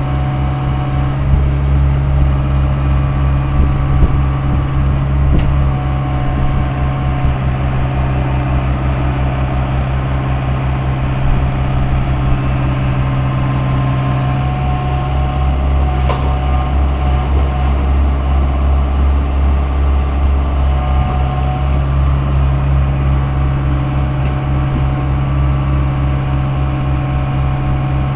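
Daewoo 75V mini excavator's diesel engine running steadily while it digs, a constant low hum, with a few short knocks and a sharper click about halfway through.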